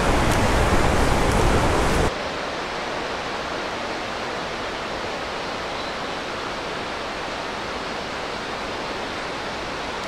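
Steady rushing water of the waterfall and mountain stream, an even hiss with no distinct events. It is louder and deeper for about the first two seconds, then drops abruptly to a quieter, even rush.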